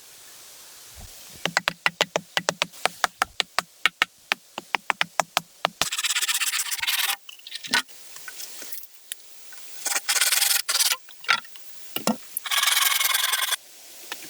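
Hand work on wood: a quick run of sharp taps, then three long scraping strokes.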